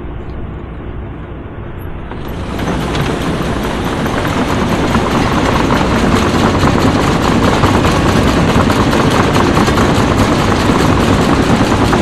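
Combine harvester running while harvesting soybeans. A duller machine hum for the first couple of seconds grows, about two and a half seconds in, into a loud, dense, steady rush that keeps on.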